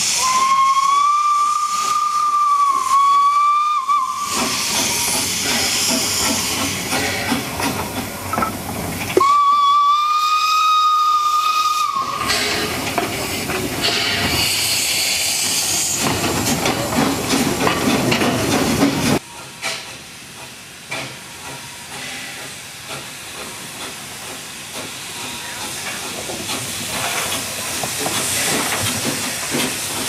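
Steam whistle of a double-headed steam tram blowing two long blasts on one steady note, over the hiss of escaping steam. The two small tank locomotives then run past close by, with steam hissing.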